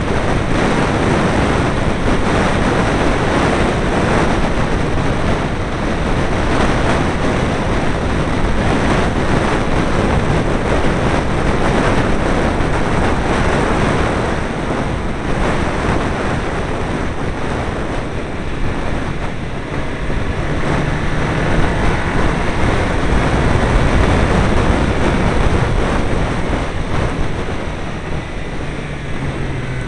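Heavy wind rush buffeting a small camera's microphone on an open Caterham 7 at speed, with the car's engine running underneath. In the last ten seconds a low engine note comes through more clearly.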